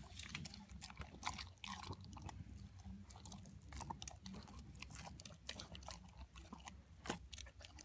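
Dog eating wet canned dog food from a stainless steel bowl: faint, irregular chewing, licking and smacking clicks.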